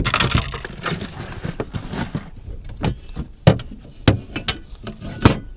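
Fishing gear rattling and clattering inside a boat's rod locker as a fish-measuring board is dug out from among the stowed rods, followed by several sharp knocks of hard gear, the loudest about three and a half seconds in.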